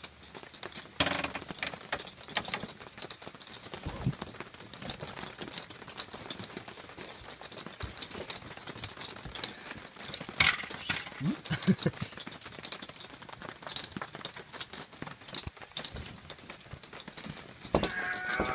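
Scattered knocks, clicks and canvas rustling as a pop-up camper's support poles are pushed into place against the tent canvas, with sharper clacks about a second in and about ten seconds in, and a few short squeaks just after the second.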